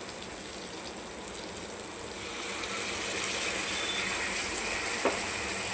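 A pan of rasam cooking on the stove: a steady hiss of sizzling and bubbling that grows a little louder about two seconds in, with a single light knock near the end.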